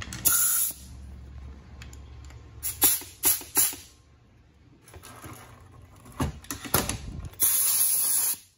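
Compressed air hissing from a shop air blow gun: a short blast at the start and a longer, steady blast near the end, with a few sharp knocks of metal parts and tools in between.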